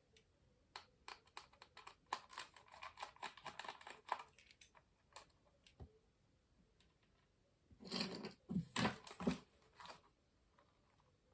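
Faint, scattered clicks, taps and scrapes of a plastic Furby Baby toy being handled and pried open, with a louder cluster of knocks about eight seconds in.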